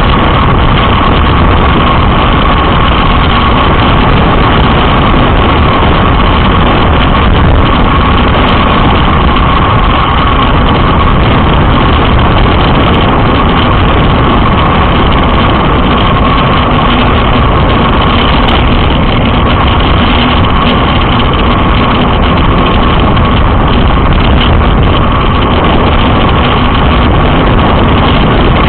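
Heavy wind noise buffeting the camera's microphone on a road bike descending at speed: a loud, steady rush with a steady tone running through it.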